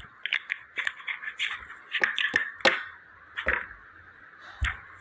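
Clicks, taps and scrapes of a small object being handled close to a phone microphone, in an irregular run over the first few seconds, with one sharp knock near the end.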